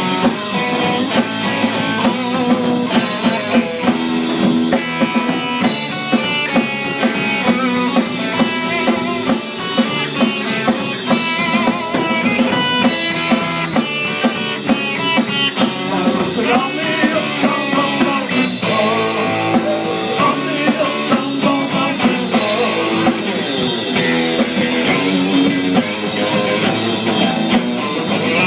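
Live instrumental surf rock band playing: electric guitar melody over a driving drum kit beat.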